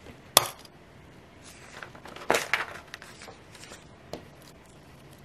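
Metal rings of a ring planner snapping open with one sharp click, then paper pages rustling and sliding as a sheet is moved off the rings, with a lighter click a little later.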